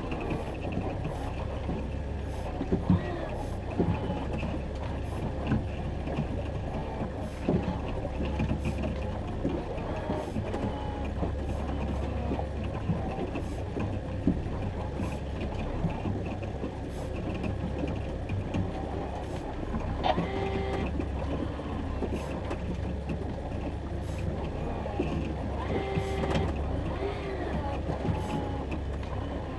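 Boat motor running steadily at trolling speed, a low drone with scattered knocks and clicks. Short pitched sounds come twice, about 20 and 26 seconds in.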